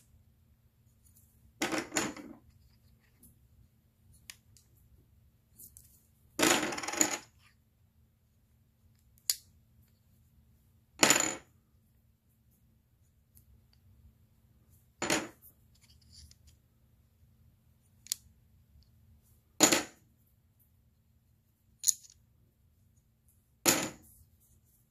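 Thick poker-chip-style game tokens clacking against one another as they are moved one at a time through a stack held in the hand. There is a sharp click every two seconds or so, about nine in all, with a longer rattle of several clicks around seven seconds in.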